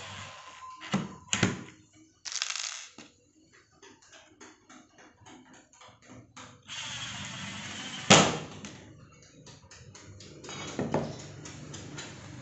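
Hardware being fitted to plywood kitchen cabinets: a series of sharp clicks and taps, with a fast run of clicks in the middle and short bursts of rushing noise. A hard knock comes about eight seconds in, and a lighter one about three seconds later.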